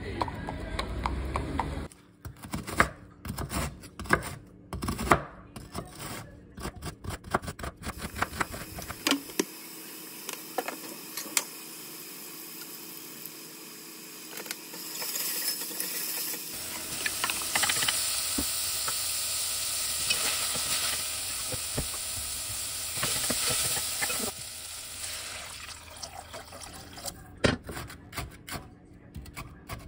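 Sliced scallions sizzling in oil in an earthenware pot, with utensil knocks and stirring against the pot; the sizzle turns louder and brighter partway through. Near the end a kitchen knife chops green chili peppers on a wooden cutting board in quick strokes.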